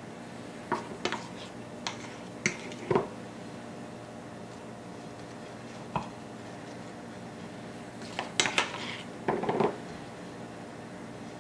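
Scattered clinks and knocks of a spatula against a metal cake turntable and cake board while buttercream is spread on a small cake, some in quick clusters, over a steady background hum.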